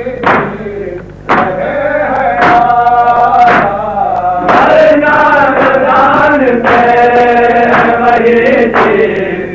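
Background music: a male voice singing a slow chant with long held notes.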